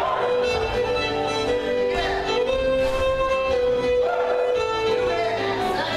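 Live contra-dance band music: a fiddle plays a tune in long, held notes over a steady rhythmic accompaniment.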